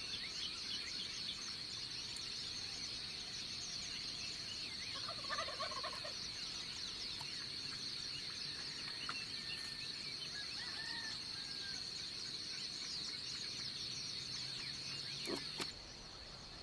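Wild turkey gobbling about five seconds in, over a dense dawn chorus of birds chirping and a steady high-pitched insect hum. The chorus cuts off near the end.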